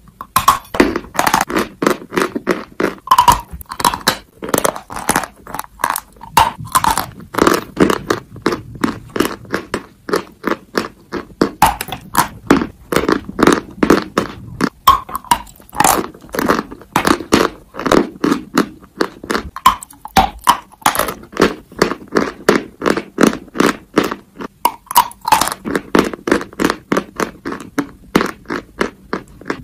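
Dry white chalk being bitten and chewed close to the microphone: a continuous run of crisp crunches, several a second.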